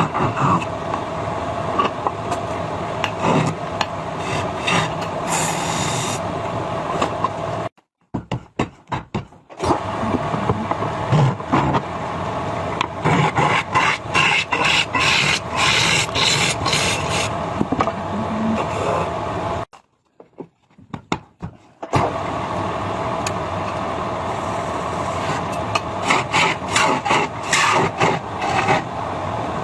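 Wood lathe running with a turning tool cutting and scraping the spinning wood: a steady motor hum under rasping, irregular scraping. The sound drops away abruptly twice for a second or two.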